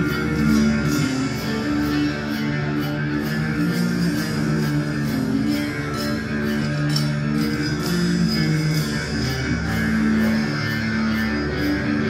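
Live metal band playing an instrumental passage: electric guitar and bass guitar holding long low notes that change every second or so, over drums with steady cymbal strokes.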